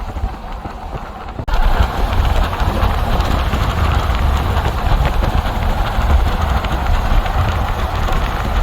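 Hail pattering densely on a surface, a continuous hiss of fine rapid ticks over a steady low rumble; it gets suddenly louder about a second and a half in.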